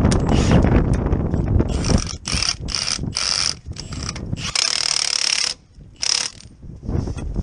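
Milwaukee M18 cordless impact wrench hammering on the front hub nut in a string of short bursts, the longest lasting about a second, with a last short burst near the end. The first second or so is a low rumble.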